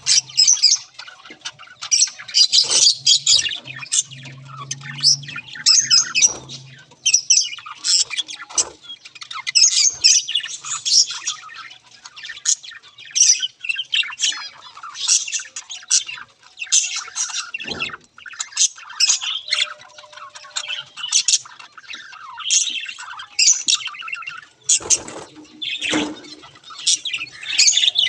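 A flock of budgerigars chattering and squawking nonstop in a dense run of high chirps. A faint low hum sits underneath for a few seconds early on, and a few sharp knocks come through, one near the middle and two close together near the end.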